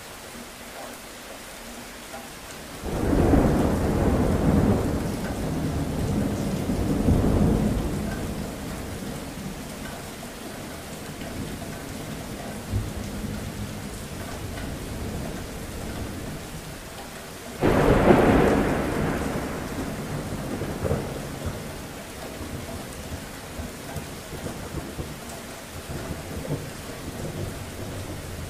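Steady rain with two rolls of thunder. The first begins about three seconds in and rumbles for about five seconds. The second begins with a sudden crack about eighteen seconds in and rolls away over a few seconds.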